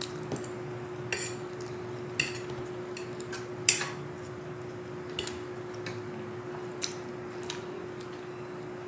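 Metal fork clinking and scraping against a ceramic dinner plate in scattered sharp clicks, the loudest about halfway through, over a steady low hum.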